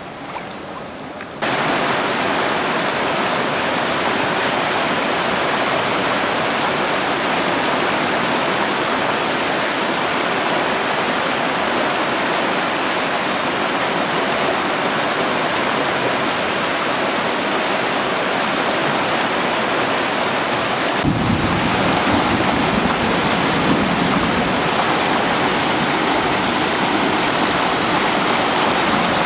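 Floodwater rushing steadily down a street, a dense, even wash of water noise. It becomes suddenly much louder about a second in, and a deeper low sound joins about three-quarters of the way through.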